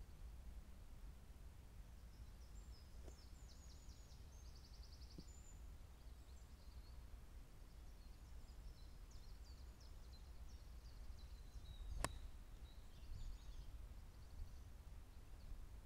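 A single sharp click of a pitching wedge striking a golf ball off the tee, about three-quarters of the way through, over faint songbird chirps and trills and a low steady rumble.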